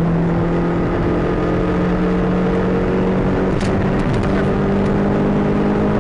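Car engine running steadily under way, heard from inside the cabin over road noise, as the car accelerates. Its low hum steps slightly higher about halfway through, with a few faint ticks around the middle.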